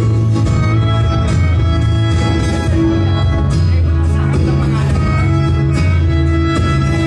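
Instrumental backing music: held notes over a steady low bass line.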